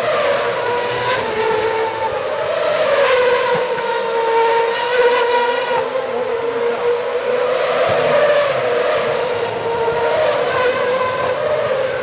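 2010 Formula 1 cars' 2.4-litre V8 engines running at high revs through a slow corner, the pitch dipping and rising again as cars brake and accelerate out. Engines stay audible throughout.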